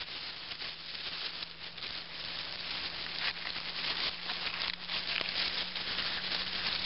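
Wood campfire crackling and hissing: a dense, steady run of fine pops and snaps.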